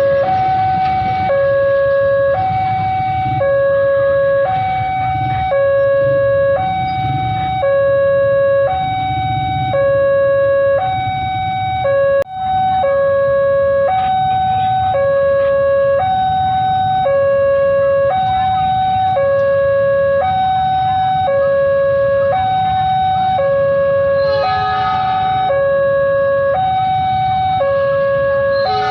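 Railway level-crossing warning siren sounding a loud two-tone alarm that switches between a lower and a higher pitch about once a second, over a low rumble. The sound drops out for a split second about twelve seconds in, and a short burst of another pitched sound joins it near the end.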